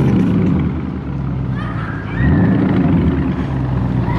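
Dodge Scat Pack's 6.4-litre HEMI V8 running, then revving up about two seconds in.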